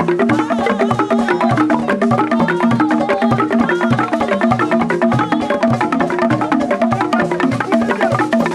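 Wimbum ngang dance music: carved wooden upright drums and other percussion playing a fast, steady rhythm.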